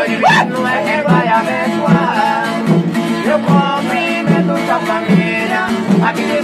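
Folia de reis style folk group performing live: men's voices singing together over a strummed small guitar and pandeiro frame drums keeping a steady beat.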